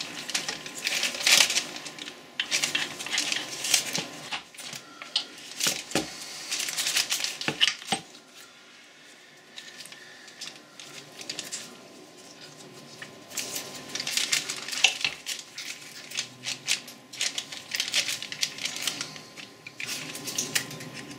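Metal parts of a Boxford lathe apron clicking and clinking as its gears and shafts are handled and fitted by hand. The clicks come thick and fast, ease off for a few seconds in the middle, then pick up again.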